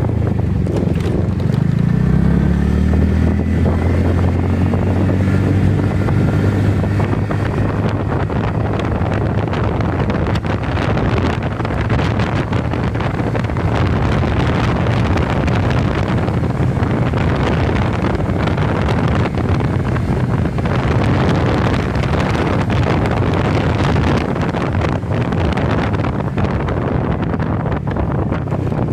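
Motorcycle engine running under way, its pitch rising over the first few seconds as it accelerates and then holding steady, with heavy wind noise on the microphone throughout.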